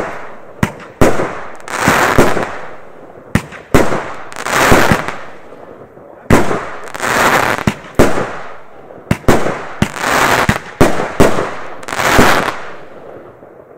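Consumer fireworks firing shot after shot: sharp launch bangs, each followed by a loud burst that spreads into a hissing, crackling rush lasting about a second, about every two to three seconds. The shots thin out near the end.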